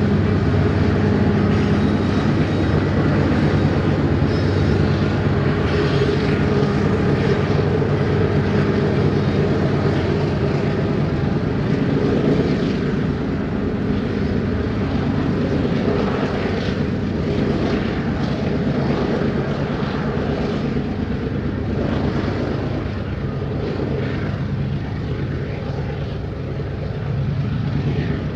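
Union Pacific diesel freight locomotive running with a steady low engine drone, mixed with the rumble of the train's cars, fading gradually as the train pulls away.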